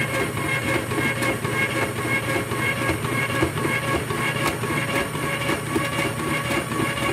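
Electric mandoline slicer's motor running steadily while its spinning thin-slicing disc cuts a cucumber pushed down the feed tube. It is a constant hum with a fast, even clatter from the blade.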